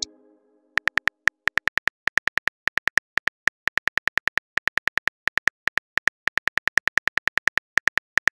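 Phone keyboard key-click sound effect as a text message is typed out. A rapid run of short, sharp clicks, one per letter and several a second in uneven bursts, starts just under a second in.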